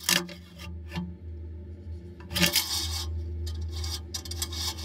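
Metal dipstick being slid down through its tube into the oil pan, scraping and rubbing in several short, irregular strokes, over a steady low hum. It goes all the way in without binding.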